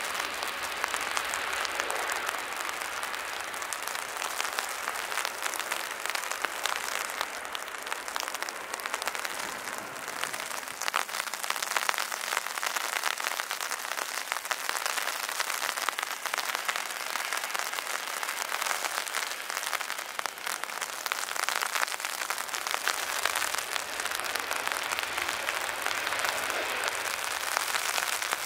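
Heavy rain, a steady dense patter of drops close to the microphone.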